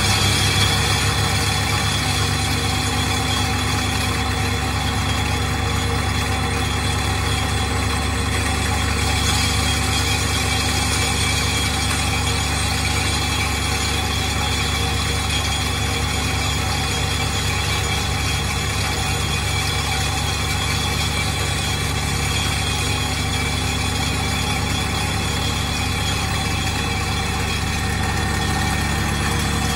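ThyssenKrupp MS-10 hydraulic vibratory hammer running on a steel pipe pile, driving it into the ground with a steady, unbroken mechanical drone and a deep hum.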